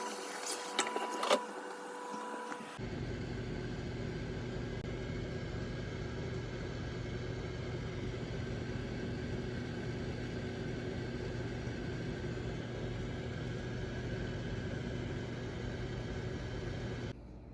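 A few clicks and steady electronic tones, then a steady low appliance hum that starts about three seconds in and cuts off suddenly near the end.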